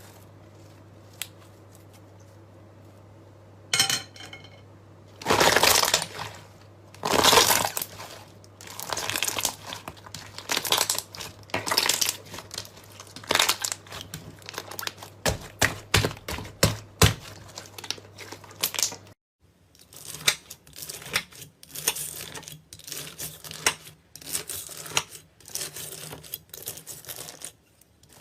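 Slime being squeezed and worked by hand, giving irregular crackling and popping sounds that start a few seconds in. A sudden cut comes partway through, and the crackling then carries on.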